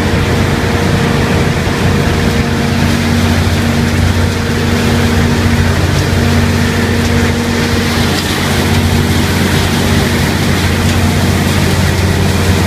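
Machinery of a PE milk-bottle recycling line running: a loud, steady drone of electric motors and turning equipment, with a constant hum under an even rushing noise.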